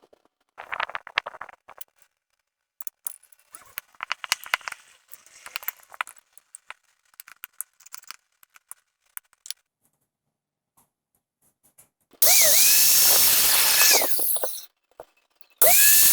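Handling clicks and light scraping, then an electric drill run twice, each time for about two seconds: the whine rises as it spins up, holds steady and falls as it winds down.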